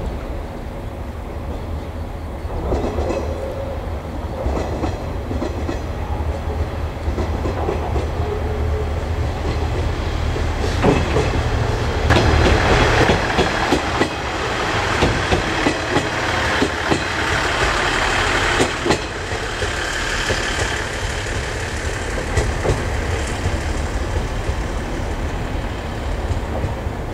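Train running slowly over depot tracks: a steady low engine rumble, with a louder stretch of wheels clicking and clattering over rail joints and points in the middle.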